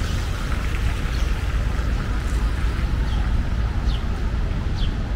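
A steady low rumble with an even hiss over it, and from about three seconds in a bird giving short falling chirps, about one a second.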